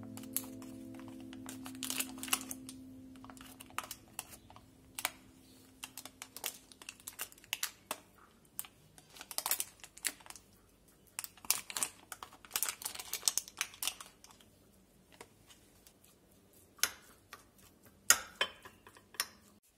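A metal spoon clicking, tapping and scraping against small plastic tubs and a bowl in quick, irregular clusters as spice paste is scooped out and stirred into a marinade. Soft background music fades out in the first few seconds.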